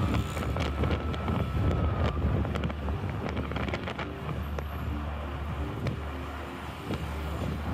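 Road traffic noise with a heavy low rumble and wind on the microphone. A steady high tone sounds for about the first two seconds.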